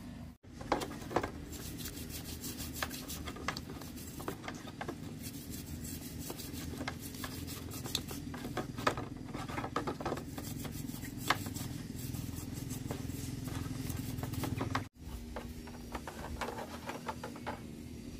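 A toothbrush scrubbing a small chainsaw carburettor in a tub of dirty liquid: quick rubbing strokes with many small clicks and scrapes, cutting out briefly twice.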